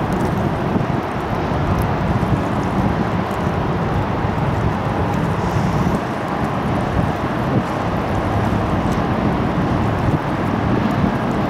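Wind buffeting the microphone: a steady, uneven low rumble of noise with no clear tones.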